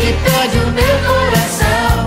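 Romantic pop song recording: drums and bass keep a steady beat under a bending lead melody line.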